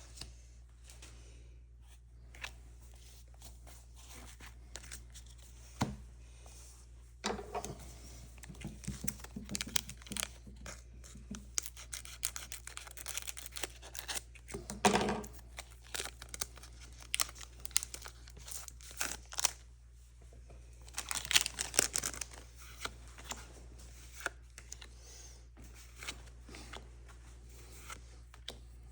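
A Pokémon card booster pack's foil wrapper being torn open and crinkled, in irregular bursts of crackling that start about seven seconds in and die away a little after twenty seconds.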